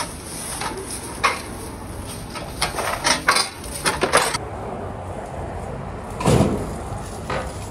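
Metal two-wheeled hand truck rattling and clacking as it is wheeled along, with several sharp knocks between one and four seconds in. A louder thud comes about six seconds in.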